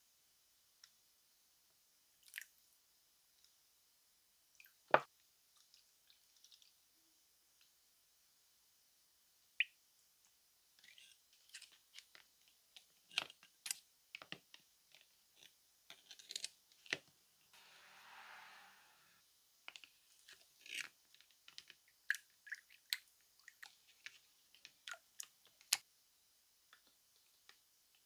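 Faint, scattered clicks and taps of needle-nose pliers and small metal hammer-drill parts knocking against plastic bowls, with small wet sounds as the parts are dipped into liquid and lifted out. One sharp click stands out about five seconds in, and a short hiss comes about two-thirds of the way through.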